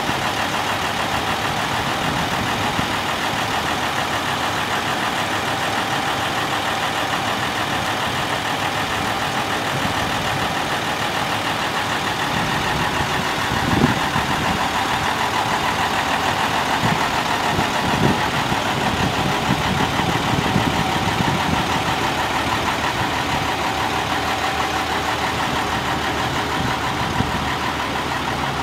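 The International DT530E 8.7-litre inline-six diesel of a 1999 International 4900 dump truck idling steadily. A few brief knocks sound about halfway through.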